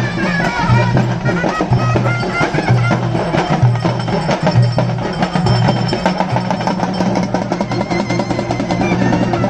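Folk drumming on barrel drums: a fast, dense rhythm over a low, steady drone.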